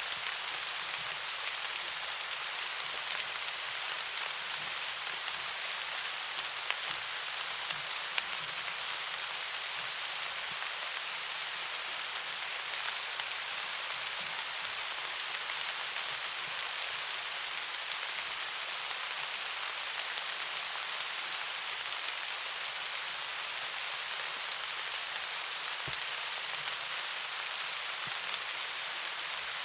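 Steady rain falling, an even hiss with a few faint separate drop ticks.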